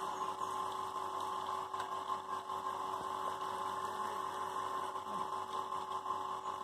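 Motor-driven water pump running with a steady, even hum and whine, pumping water out of a pond through a hose.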